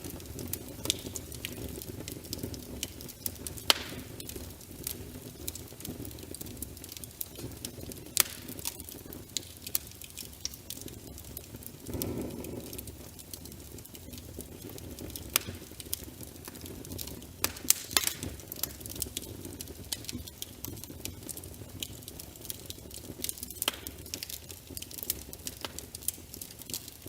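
Wood fire crackling in a fireplace: scattered sharp pops over a steady low rush of flames, with a brief swell about twelve seconds in.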